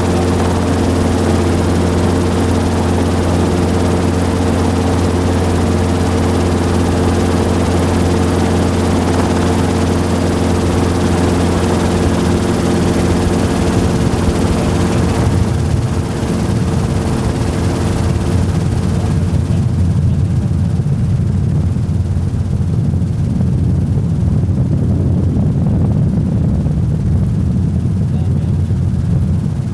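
Helicopter running steadily, a loud hum of several steady tones over a broad hiss. About halfway through the hiss drops away and a rougher low rumble takes over.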